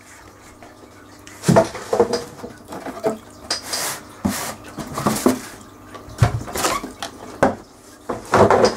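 Cardboard shoebox being opened and a pair of hiking boots lifted out and set down on a hard tabletop: a string of irregular scrapes, rustles and knocks.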